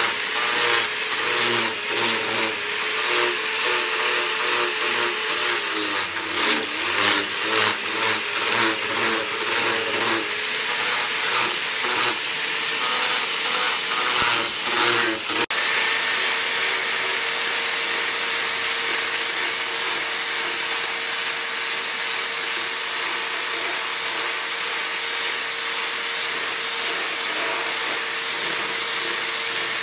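Electric angle grinder with a sanding disc running against a wooden knife handle, sanding the wood down to shape: a steady motor whine under a harsh grinding rasp. The motor's pitch sags briefly under load about a quarter of the way in, and the sound changes abruptly about halfway through.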